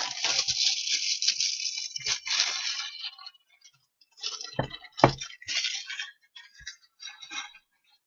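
Trading cards and their packaging being handled: crinkly rustling and small plastic clicks, with two sharper knocks about four and a half and five seconds in.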